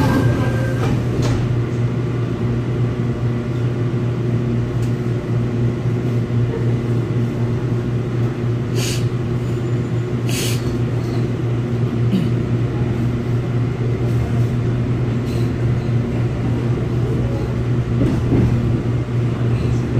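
Inside a Seoul Subway Line 4 electric train car: a steady low hum from the car's equipment while it stands at the platform, with two short sharp noises about nine and ten seconds in. Near the end the train pulls away and the running noise grows a little louder.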